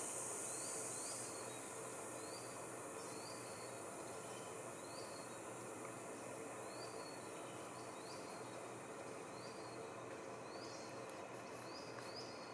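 Tropical rainforest ambience: a high, steady insect drone that drops away about a second in, and a short rising chirp repeated about once a second over a soft, even background hiss.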